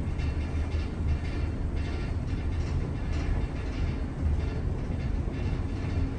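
Westinghouse traction elevator car travelling in its hoistway: a steady low rumble with light irregular rattling from the car.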